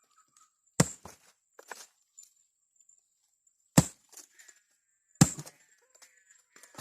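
Three sharp chopping strikes into wood, the last two about a second and a half apart, with lighter knocks and cracks between them.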